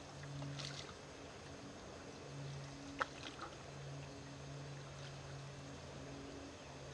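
Faint paddling of an aluminium canoe on calm water, under a low steady hum that drops out now and then. One sharp knock about three seconds in.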